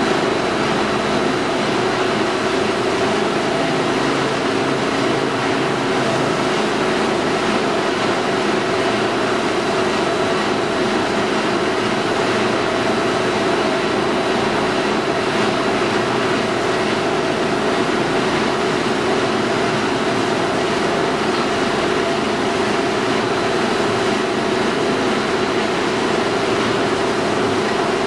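Hydraulic spindle rotary veneer peeling lathe running steadily as it peels an okume log into thin face veneer: a continuous, unbroken machine noise with a constant hum through it.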